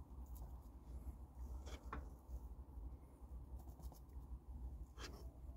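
A utensil scraping and tapping against a pan as mashed potato is scooped out and served onto a plastic plate: a few brief scrapes and clicks about two seconds in and again near the end, over a faint low rumble.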